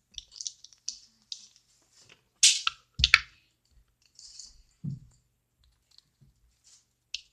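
Small plastic colour containers being handled and opened: scattered light clicks and taps, two sharper clicks about halfway through and a soft thump soon after.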